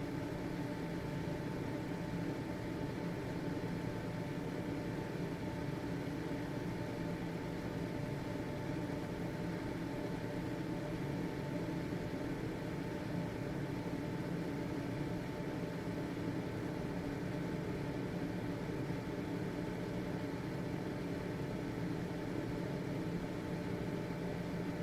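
Household ventilation fan running steadily: an even whooshing noise of the air with a steady motor hum over it.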